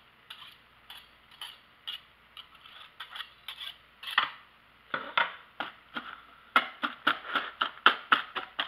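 Wire whisk knocking and scraping against a mixing bowl while mashing potato filling. There are sparse clicks at first; about five seconds in, the strokes become quicker and louder, at around three to four a second.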